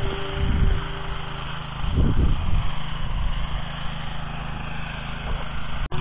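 Oka walk-behind tractor's single-cylinder petrol engine running steadily at a constant speed, with a couple of low rumbles about half a second and two seconds in.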